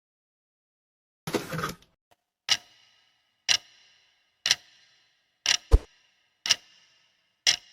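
A brief rustle, then sharp clicks with a short high-pitched metallic ring after each, coming evenly about once a second, one of them doubled.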